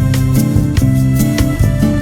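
Background music: a steady beat with plucked guitar and bass.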